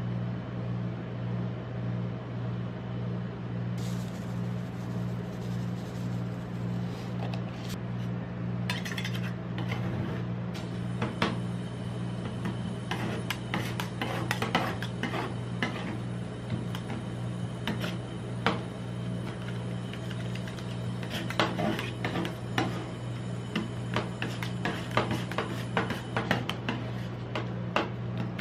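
Two metal spatulas chopping and scraping ice cream mix on the steel cold plate of a rolled-ice-cream machine. The first several seconds are quieter, and from about ten seconds in there are frequent sharp clacks and scrapes of metal on metal, all over a steady low hum.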